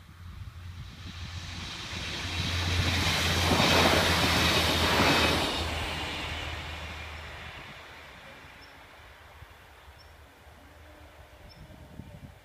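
Alstom Coradia LINT diesel railcar passing over the crossing. Its diesel engine hum and the wheels on the rails swell to a peak about four to five seconds in, then fade slowly as it moves away.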